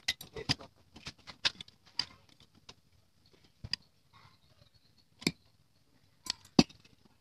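Sharp clicks and light metal knocks as a Vespa PX's finned cylinder head is wiggled and pulled off its studs. There is a quick run of them in the first three seconds, then a few scattered ones, the loudest near the end.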